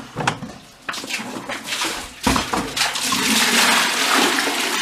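A few knocks and clatter, then from about two seconds in a steady, strong rush of water pouring or gushing.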